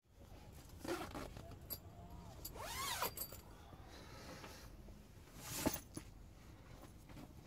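Faint rustling and handling of tent fabric and gear, with a few short swishes, the loudest near six seconds. About three seconds in comes a brief rising-and-falling tone.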